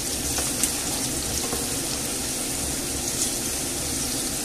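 Cubed potatoes frying in olive oil in a skillet, a steady sizzling hiss, with a few faint knocks and scrapes from wooden spatulas turning them.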